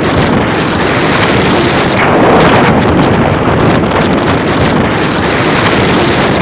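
Strong storm wind blowing hard across the microphone: a loud, steady rush with many small gusts and buffets.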